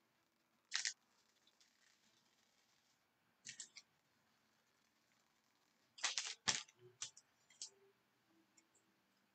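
Trading cards being handled and flipped through: a few short papery snaps and slides, one about a second in, a couple around three and a half seconds, and a tighter cluster around six seconds.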